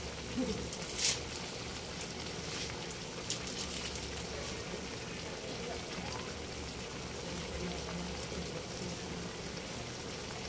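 Chicken and carrots simmering in a thin pineapple-juice broth in a metal pan: a steady bubbling hiss with a few short crackles.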